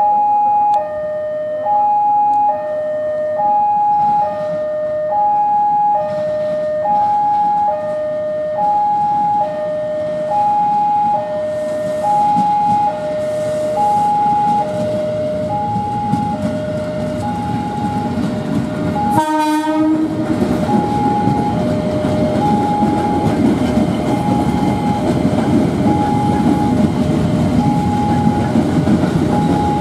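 A two-tone electronic warning alarm alternates between a high and a low tone, a pair roughly every second and a third, and sounds throughout. A KRL Commuter Line electric multiple unit gives one short horn blast about two-thirds of the way in. Its running noise then builds as it passes close by.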